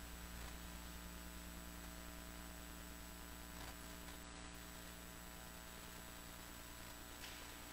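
Faint steady electrical mains hum over a low hiss, with two faint ticks: background room tone with no one speaking.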